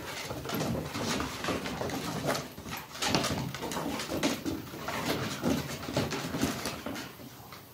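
Dogs play-fighting, with dog vocal noises and many sharp scuffs and clicks of paws and claws on wooden deck boards; it dies down near the end.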